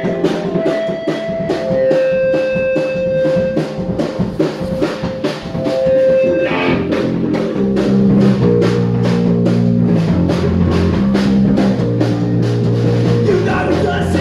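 Punk rock band playing live: electric guitar over a drum kit keeping a fast, even beat, the guitar moving to held low chords about halfway through.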